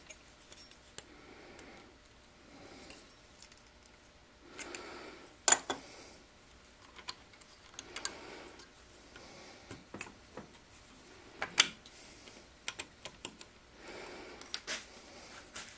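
Thin copper sheet handled and pressed over the steel jaws of a three-jaw lathe chuck: irregular light clicks and taps of metal on metal, with two sharper clicks about a third and three quarters of the way through.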